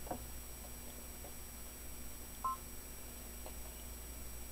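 One short electronic beep from the Brother Dream Machine embroidery machine's touch panel as an on-screen button is pressed, about halfway through, over a faint steady room hum.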